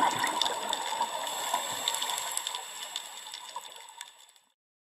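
Water-like intro sound effect: a rushing hiss with scattered clicks that fades out and stops near the end.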